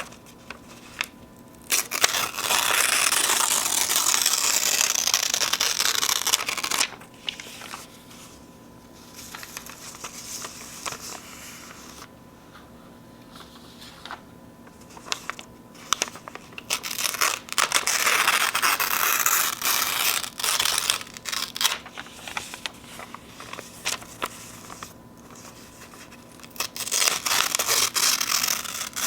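Sheets of paper being torn slowly in three long rips of several seconds each, the first about two seconds in and the last near the end. Quieter crinkling and handling of the paper comes between the rips.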